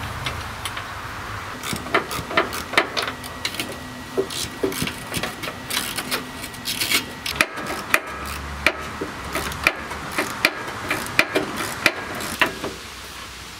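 Socket ratchet on an extension clicking in short runs, with metal taps and rubbing, as a riding mower's engine mounting bolt is tightened down to stop the engine knocking on its loose mounts.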